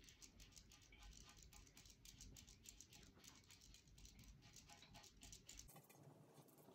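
Faint, quick scratchy strokes of a spalter brush's bristles working pearl paint onto a vase in half circles, several strokes a second.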